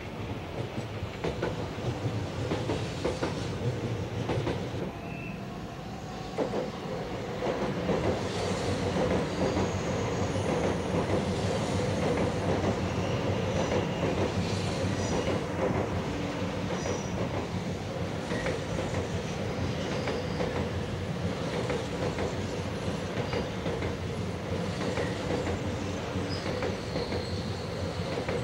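A Shinkansen 0 series train running past on the rails: a steady rumble of wheels and cars, with thin high wheel squeals now and then. It grows louder about eight seconds in and stays that way.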